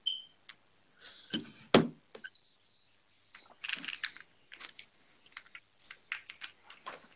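Close-up handling noise. A brief high beep at the start, a hard knock about two seconds in, then an irregular run of small clicks and crackles as a vape mod is handled near the phone's microphone.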